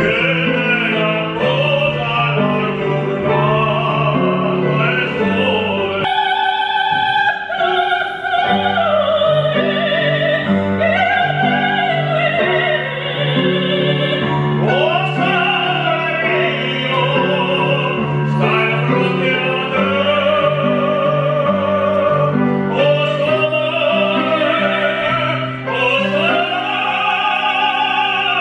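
Operatic duet: a man and a woman singing in classical style with vibrato over instrumental accompaniment. They take turns and sing together near the end.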